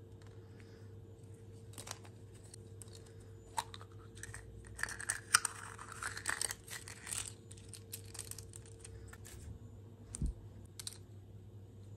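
Hands handling a plastic surprise-egg capsule and its paper leaflet: a few small clicks as the capsule is worked open, then paper crinkling for about three seconds from four seconds in as the folded leaflet is pulled out and unfolded, then lighter handling clicks and a single dull thump about ten seconds in.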